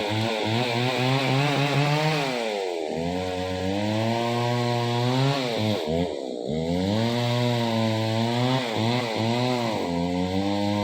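Chainsaw engine running steadily. Its note sags and recovers about three times.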